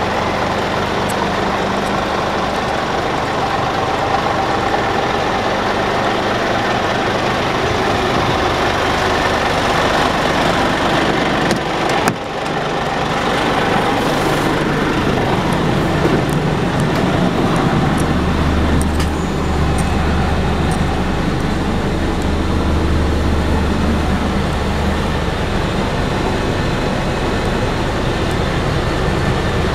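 Scania P400 tipper's diesel engine idling steadily, heard first from outside the truck and then from inside the cab, where a steady low hum comes through strongly for several seconds. A single sharp knock about twelve seconds in.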